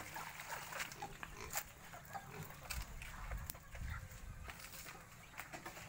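Farmyard animal noise with pigs grunting, among scattered clicks and knocks; the low grunting is loudest around the middle.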